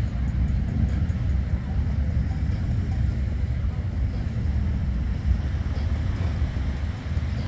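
Wind buffeting the microphone outdoors: a steady low rumble that rises and falls in gusts.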